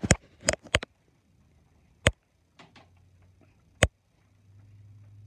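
A few sharp knocks and clicks at uneven spacing: three in the first second, then single ones about two seconds in and near four seconds. A low steady hum comes in near the end.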